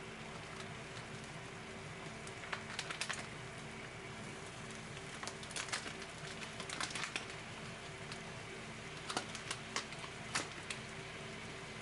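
Sausages sizzling in a hot frying pan: a steady frying hiss with three bursts of sharp crackling pops as more sausages go into the bubbling fat.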